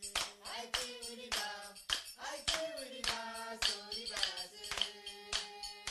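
Background music: sharp percussive hits, about three a second, over a held low note and a wavering melodic line.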